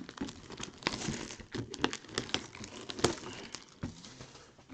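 Packaging of a boxed mini helmet being handled and opened: irregular rustling and crinkling with small clicks and knocks.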